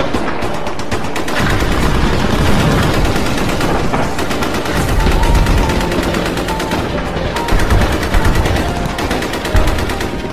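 Heavy battlefield gunfire: rapid, unbroken machine-gun and rifle fire, with a few louder single shots in the last few seconds.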